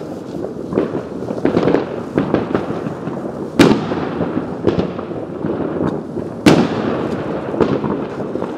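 Many fireworks going off around the listener: a continuous crackle and rumble of bursts, broken by sharp loud bangs, the two loudest about three and a half and six and a half seconds in.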